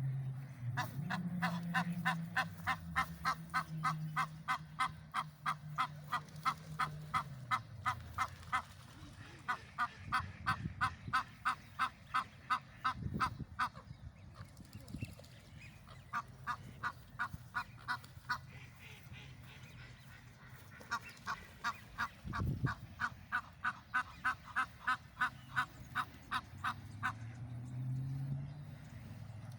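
Geese honking in long runs of quick repeated honks, several a second, in four bouts with short pauses between them.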